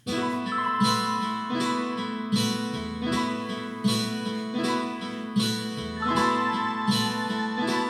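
Instrumental music starts suddenly: a song intro with chords struck on a steady beat about every three-quarters of a second under sustained pitched notes.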